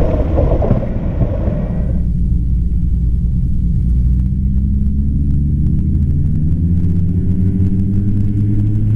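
The twin turbocharged six-cylinder engines and propellers of a Piper Seneca II (PA-34-200T), heard from inside the cockpit. A loud rush of engine and airflow noise cuts off abruptly about two seconds in. It gives way to a steady low engine drone whose pitch climbs slowly through the second half as the engines come up in rpm.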